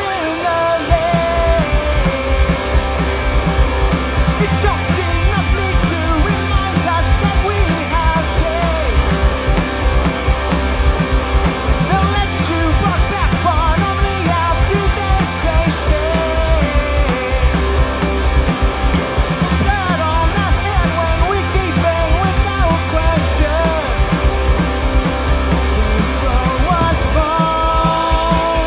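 Punk rock band playing live: electric guitars, bass guitar and a drum kit, with a man singing over them and cymbal crashes every few seconds.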